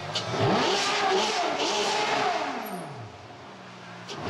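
Ferrari engine revving: a quick rise in pitch early on, then a long fall back down to a steady idle at a lower level.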